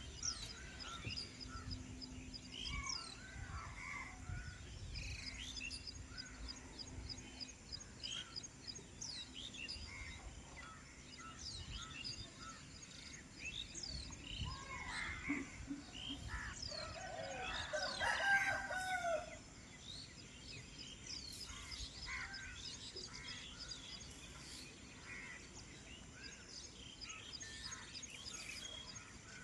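Early-morning outdoor birdsong: many small birds chirping in short, scattered calls. A rooster crows once, the loudest sound, a little past halfway through.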